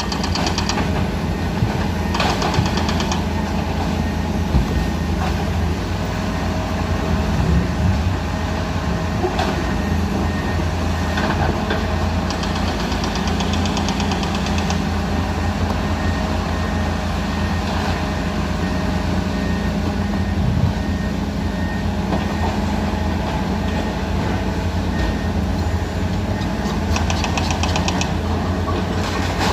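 Caterpillar 336D hydraulic excavator's diesel engine running steadily under load, with occasional short knocks and clatter as it works rock.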